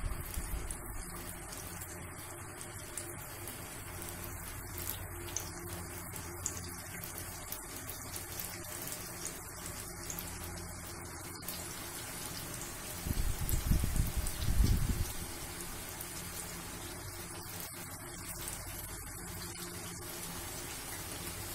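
Katayif pastries deep-frying in a pot of hot oil, a steady sizzling hiss of bubbling oil. A louder low rumble breaks in for about two seconds just past the middle.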